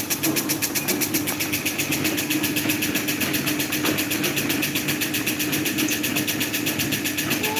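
Electric table fan running steadily: a motor hum with a fast, even ticking, about ten ticks a second.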